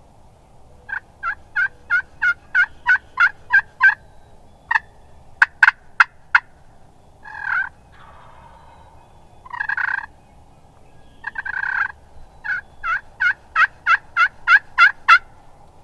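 Turkey yelping: a run of about ten evenly spaced yelps, roughly three a second, then a few sharp clucks and three longer calls of about a second each, and a last run of about a dozen yelps that grows louder toward the end.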